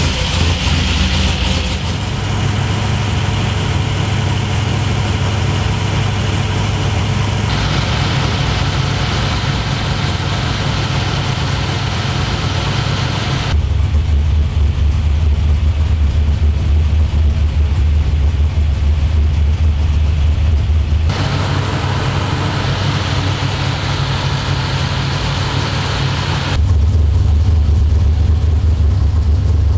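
Small-block Chevy V8 in a swapped S-10 idling steadily with a deep low rumble. The sound changes abruptly several times between a brighter, hissier mix and a heavier bass rumble.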